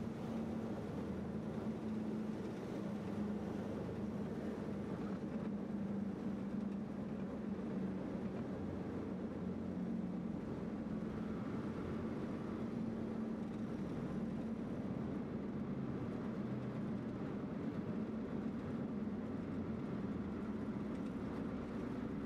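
Single-engine propeller airplane's engine and propeller running at low power while taxiing, heard as a steady drone from inside the cockpit.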